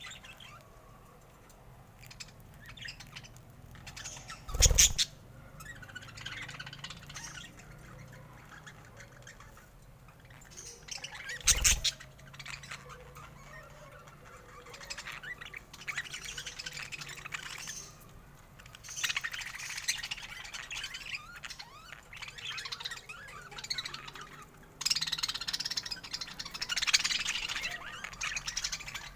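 Budgerigars chattering and warbling in quick high chirps, busier and louder in the second half. Two short loud thumps stand out, about five and twelve seconds in.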